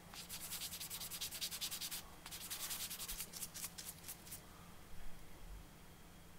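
Sanding sponge rubbed quickly back and forth over a small plastic model-kit engine part. The strokes come in two spells, with a short break about two seconds in, and stop a little after four seconds.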